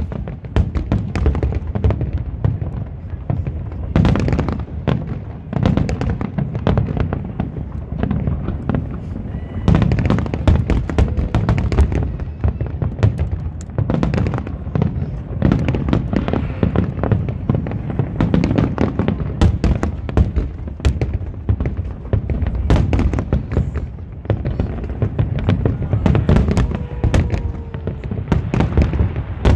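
Aerial fireworks shells bursting in a rapid, nearly unbroken barrage of many overlapping bangs and crackles.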